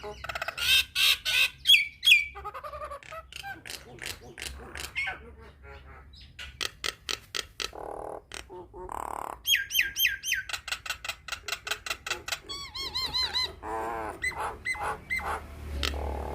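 A jalak nias myna singing a varied, chattering song: sharp clicks, whistled chirps that bend up and down, and quick warbling trills, in a steady run with short pauses.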